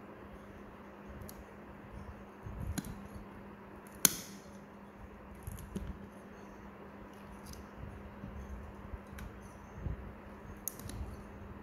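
Steel nail nippers cutting through a thick, fungus-hardened toenail: scattered clicks and crunches, with one loud, sharp snap about four seconds in. A steady low hum runs underneath.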